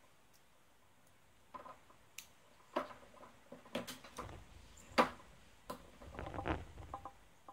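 Irregular small clicks and taps of plastic robot parts being handled and pressed together on a wooden tabletop, with one sharp louder click about five seconds in and a short stretch of rubbing and handling noise after it.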